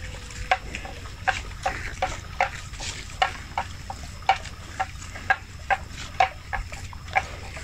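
Water buffalo cropping and chewing grass: a run of short, crisp tearing sounds, two or three a second and irregularly spaced. A faint steady high hum runs underneath.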